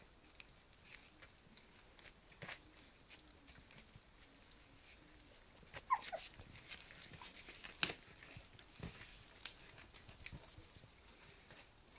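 Three-week-old cocker spaniel puppies feeding from a steel bowl on newspaper: faint scattered clicks and rustles, with one short falling squeak from a puppy about six seconds in.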